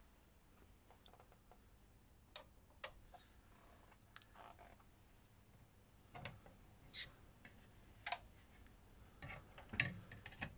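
A series of faint, separate clicks and taps as the front-panel buttons of a Pioneer VSX-D736S AV receiver are pressed, with a quick cluster of clicks near the end as its hinged front flap is lowered.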